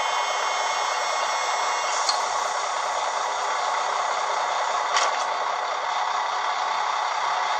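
Sound of a TT-scale ČSD class 842 diesel railcar model: its ZIMO sound decoder plays diesel railcar running sound through a small speaker, heard as a steady, thin hiss with no low end. A high, several-toned whine stops about two seconds in, and sharp clicks come about two and five seconds in.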